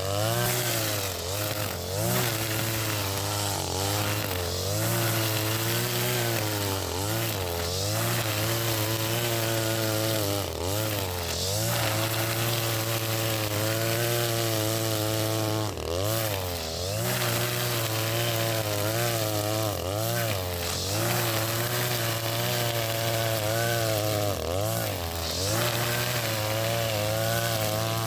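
Husqvarna 542RBS 42cc two-stroke backpack brush cutter running at cutting speed with square nylon trimmer line. The engine pitch keeps dipping and rising every second or two as the line cuts into grass.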